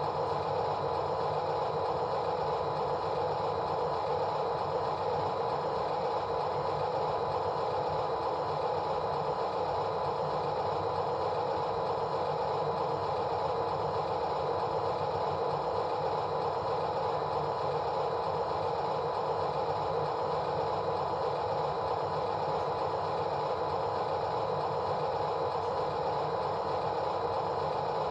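A steady mechanical drone, like an engine or motor running evenly, with no change in pitch or loudness.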